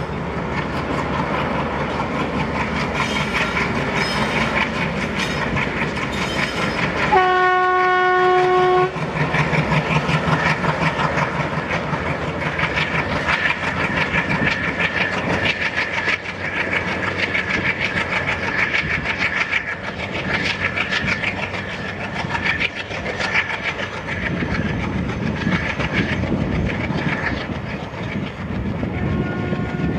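WDM-3A diesel locomotive accelerating hard with a passenger train, its 16-cylinder ALCo engine chugging while the coaches clatter over the rail joints. The locomotive's horn sounds once for about a second and a half about seven seconds in, and starts again right at the end.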